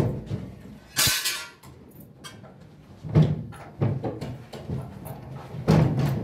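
Office cubicle partition panels and a shelf unit being handled and moved: scattered knocks and thumps, with a short scraping hiss about a second in.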